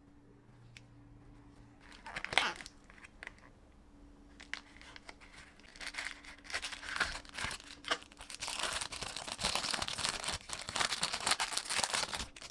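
Plastic packaging crinkled and torn open to unwrap a replacement phone battery. The crinkling is dense over the last four seconds and stops abruptly near the end, after one sharp knock about two seconds in and some scattered handling of a cardboard box.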